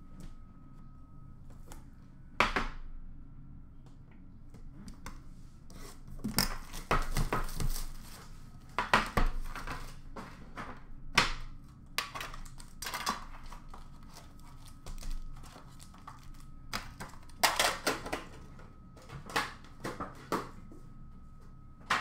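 Hands opening trading card packs and handling cards and a metal card tin: wrapper crinkling and tearing, cards shuffling, and irregular sharp clicks and knocks.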